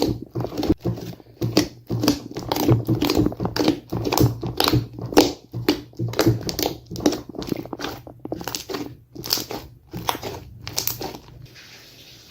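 Slime being squeezed and pressed by hand: a run of short squishing clicks and pops, two to three a second, that stops near the end.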